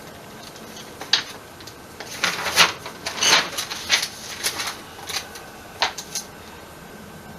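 A run of irregular sharp clicks and rattles, loosest and busiest in the middle, over a faint steady hiss.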